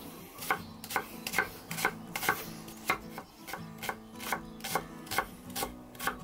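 Chef's knife chopping vegetables on a wooden cutting board: about a dozen sharp knocks of the blade against the board, roughly two a second.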